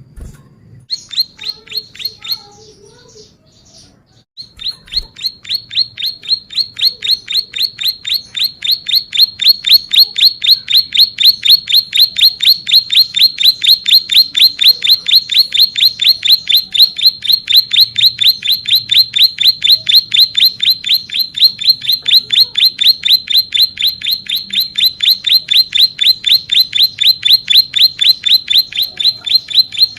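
Ciblek sawah (a prinia) singing. A short burst of rapid repeated notes comes about a second in; then, after a brief pause, it launches a long, unbroken 'ngebren' run of sharp, evenly repeated notes at about four a second that grows louder and keeps going.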